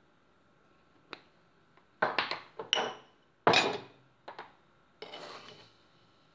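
Glass spice jars with plastic caps clicking and clinking as they are handled and set down: a light click about a second in, a cluster of knocks about two seconds in, the loudest knock about halfway, and a brief rattle near the end.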